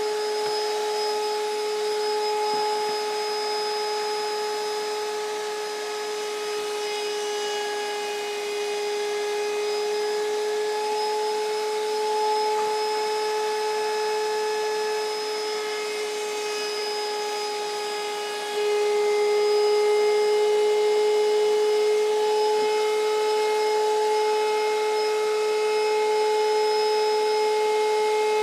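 Electric wood router running with a steady high-pitched whine, growing louder about two-thirds of the way through.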